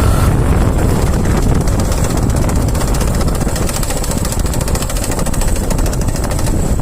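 Bajaj motorcycle engine running with the clutch lever pulled in, giving a fast, steady clattering rattle from inside the engine, as if the engine were breaking. The mechanic puts the rattle down to warped clutch plates or pressure plate, or a worn clutch centre.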